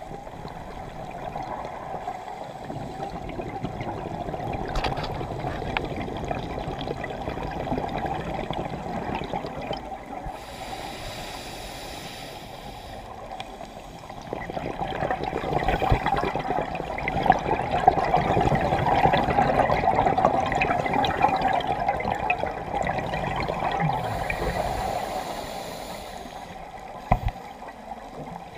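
Water heard underwater through a camera housing: a continuous muffled rush and gurgle with a fine crackling of clicks, growing louder through the middle, and a short thump near the end.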